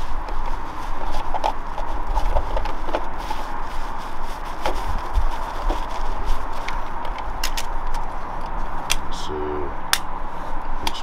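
Scattered light clicks and knocks of hands working plastic adjustable decking pedestals and timber joists, twisting the pedestals to set the frame's height, over a steady outdoor rush with a low rumble.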